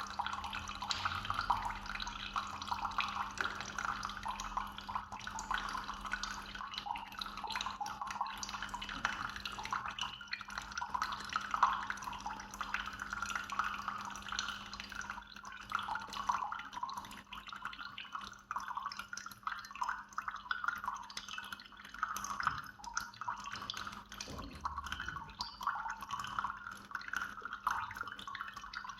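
Single-serve pod coffee maker brewing: hot coffee trickling and dripping steadily into the cup, over a low steady hum.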